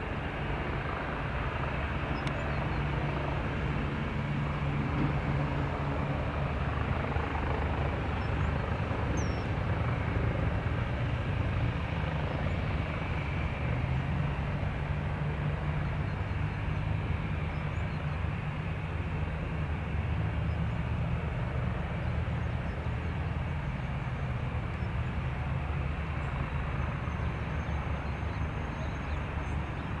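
Steady rumble of aircraft engines running at low power on the apron, with no single event standing out.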